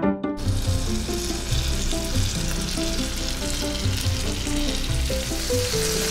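Chicken and gizzard bopis in coconut-milk sauce sizzling hard on a hot cast-iron sizzling plate, the hiss starting suddenly about a third of a second in as the food is poured on and then staying steady.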